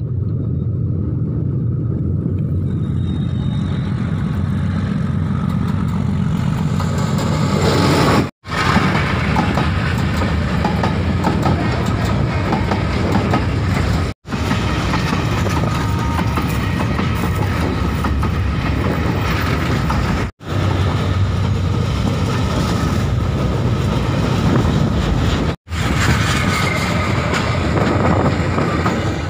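Train passing at close range: a low rumble builds as it approaches, then the wheels run loud over the rails with a clattering rush as the wagons go by. The sound drops out for an instant four times.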